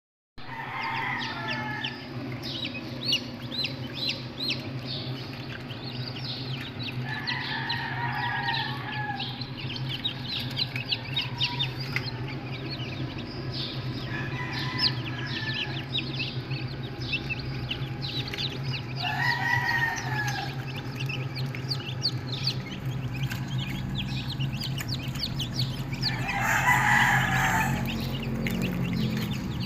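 Gamefowl roosters crowing five times, the last crow the loudest, over a constant dense peeping of many chickens or chicks. A steady low hum runs underneath.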